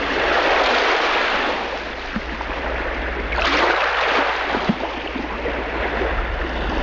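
Wind rush and engine drone of an ultralight trike in flight: a steady rushing roar over a constant low hum, easing off around two seconds in and swelling again about a second and a half later.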